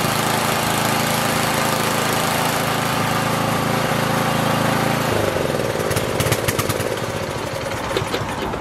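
Briggs & Stratton small engine on a Craftsman tiller, running steadily on its replacement carburetor, then cut off about five seconds in and winding down, with a few clicks and rattles near the end.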